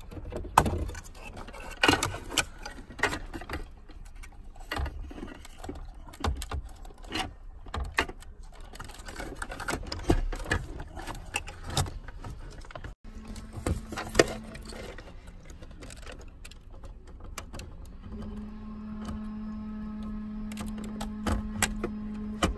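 Repeated clicks, knocks and rattles of plastic trim and wiring connectors as the head unit is worked out of a BMW dashboard. Later a steady low hum with overtones starts, stops, and returns near the end.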